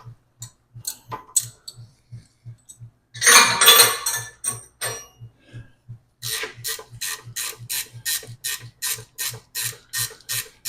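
Ratcheting gear wrench clicking, spinning out a loosened 14 mm brake caliper pin bolt, with even clicks of about three to four a second from about six seconds in. There are scattered lighter clicks before, and a loud metallic clatter a little past three seconds in.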